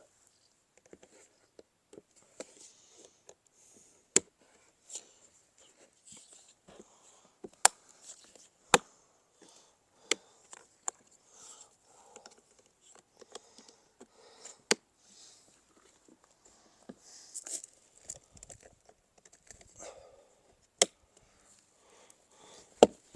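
Plastic clips snapping into the plastic surround pieces of a Blagdon no-dig nature pond: several sharp clicks at irregular intervals, with quieter plastic handling and rustling in between.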